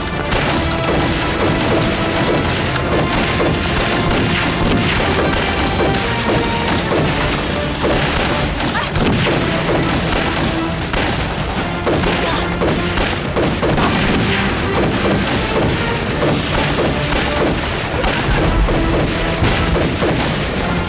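Dubbed film gunfight: rapid rifle shots and bullet impacts over a background music score, with a heavy explosion boom near the end.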